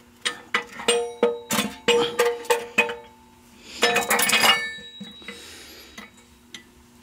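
Steel gears on a Ford tractor transmission's main shaft clinking and ringing against each other and the case as the shaft is worked into place: a quick run of about ten sharp ringing clinks, then a short scraping metal rattle about four seconds in.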